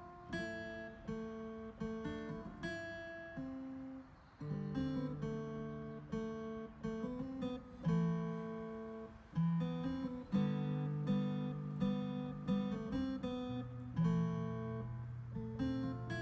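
Background music played on a keyboard: plucked, guitar-like notes in a steady run over held low bass notes.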